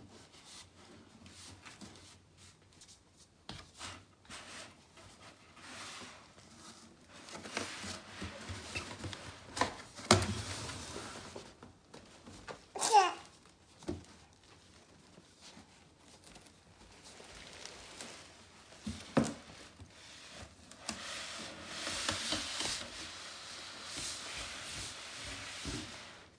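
A baby babbling and squealing while handling cardboard boxes, with scattered knocks and bumps of cardboard. Near the end comes a steady scraping as a cardboard box is pushed along a wooden floor.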